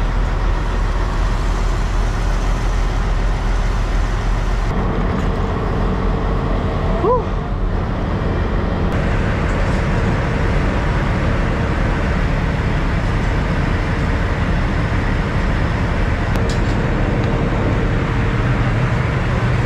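Steady low mechanical hum and rush at a truck-stop diesel pump while fuel is pumped into a semi truck's side tank. A brief short chirp comes about seven seconds in.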